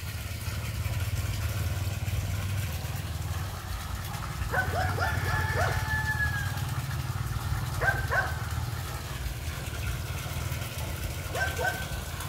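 A dog barking in short runs: several barks about four to six seconds in, two about eight seconds in and two more near the end, over a steady low hum.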